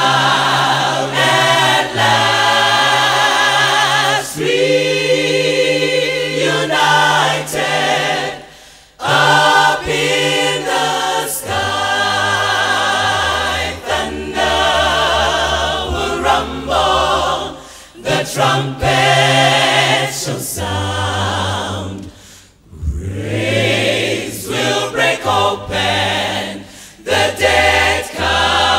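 Gospel vocal ensemble singing in harmony, with several voices together. The singing drops away briefly twice.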